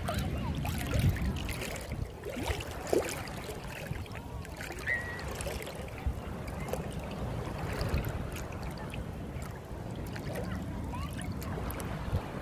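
Shallow seawater splashing and lapping around a wader's legs, with small scattered splashes and a few louder ones, over a low rumble.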